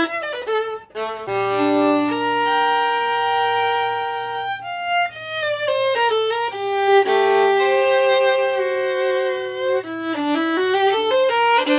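Solo violin played with the bow. A quick run of short notes ends about a second in, then a slow melody of long held notes follows, with a brief faster figure near the end.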